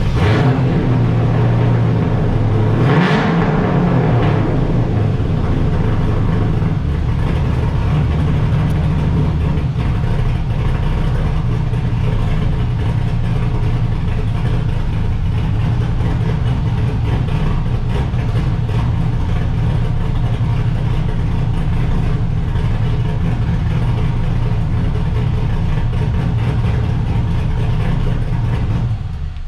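GM LS V8 in a Honda S2000, running through a full stainless exhaust with Vibrant mufflers: it idles steadily, with one quick rev about three seconds in, and cuts off at the very end.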